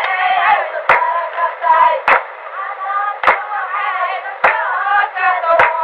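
Several women's voices singing together, overlapping lines with a thin, tinny tone, over a sharp click that comes about every 1.2 seconds.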